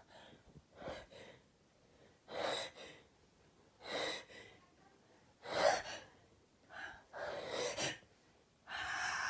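A person's short, catching gasps, about seven of them, coming closer together near the end: the gasping inhales of a sneeze building up.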